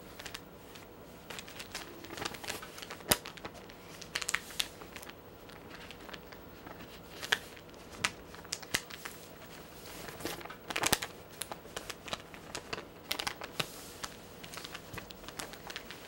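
A sheet of origami paper being folded into a mountain fold and creased by hand: intermittent crinkling and rustling with scattered sharp crackles, the loudest about three seconds in and again about eleven seconds in.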